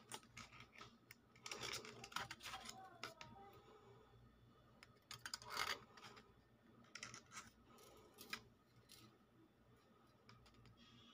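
Faint, scattered clicks and scrapes of handling: gold bangles knocking against each other and sliding on a sheet of paper as they are turned in the hand.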